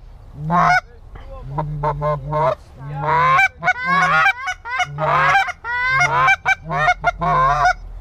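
Canada goose call blown by a hunter in quick runs of honks and clucks, calling to a pair of geese circling in.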